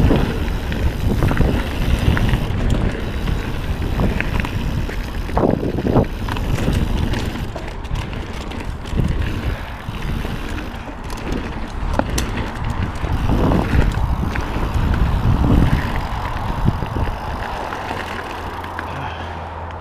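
Mountain bike ridden fast down a dirt trail: wind buffeting the microphone, tyres rolling over dirt and the bike rattling and knocking over bumps. It grows quieter near the end as the bike reaches smooth pavement.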